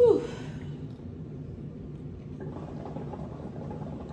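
Hookah water bubbling as smoke is drawn through the hose, starting a couple of seconds in, over a steady low hum. A brief sound sliding down in pitch opens the moment and is the loudest thing in it.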